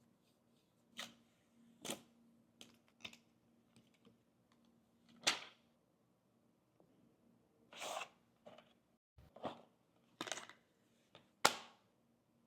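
Handling sounds from unboxing a phone: about ten sharp clicks, taps and short rustles of the iPhone and its packaging or case, spaced irregularly a second or so apart, with a longer rustle near the middle.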